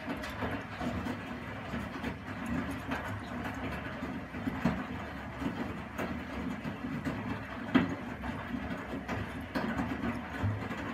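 Primus P6 commercial front-loading washing machine tumbling a wash load on a 95 °C boil wash: the drum starts turning at the very start, and its motor hums as wet laundry churns and drops. Irregular knocks run through it, with a sharper one near the end.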